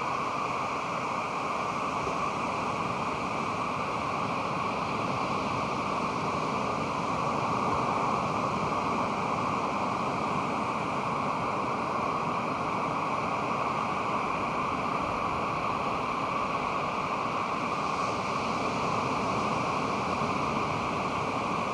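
Pacific Ocean surf: a steady wash of breaking waves, swelling slightly about eight seconds in.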